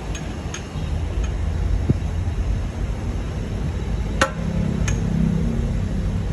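Metal-on-metal clinks from tools and parts being handled during a car repair: a few light ticks, then two sharper clinks about four and five seconds in, over a steady low rumble.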